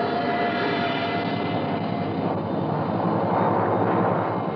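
Jet fighter taking off, its jet engine running loud and steady, played as a radio-drama sound effect. A high whine in it fades after about a second, and the rushing noise swells a little near the end.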